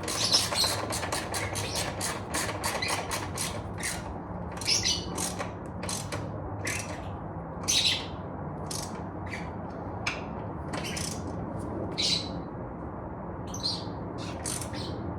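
Socket ratchet clicking as a bolt is tightened down: a quick run of clicks over the first few seconds, then short clicking swings about once a second.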